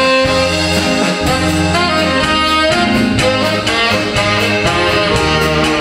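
Live band playing an instrumental passage: saxophone carrying the melody over drums and keyboard with a steady beat.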